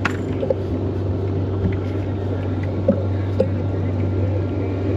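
Motorboat engine running at a steady speed, a constant low hum, with a few light clicks over it.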